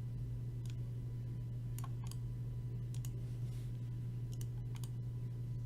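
Scattered clicks at a computer, about nine in all, some in quick pairs, over a steady low hum.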